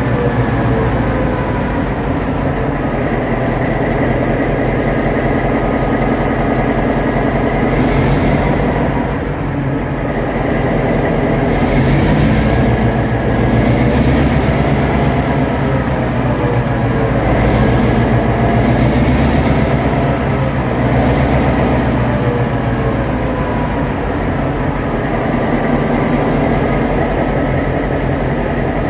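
EMD SD38-2 diesel-electric locomotive's non-turbocharged V16 diesel engine running loud and steady under load, its pitch drifting slightly up and down as the throttle changes, with a few brief noisy surges over it.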